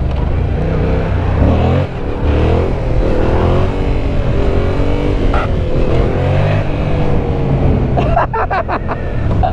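Yamaha MT-07's 689 cc CP2 parallel-twin with an Arrow exhaust running under way, its pitch rising and falling as the throttle is worked, with a short dip about two seconds in. Wind rushes over the helmet-mounted microphone.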